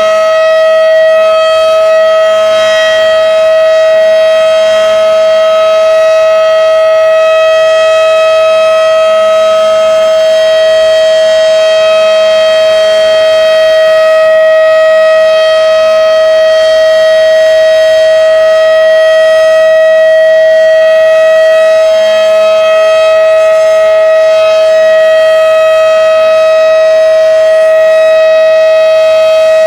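Federal Signal Model 5/7 outdoor warning siren sounding the steady alert signal: one loud, unbroken tone held at full pitch.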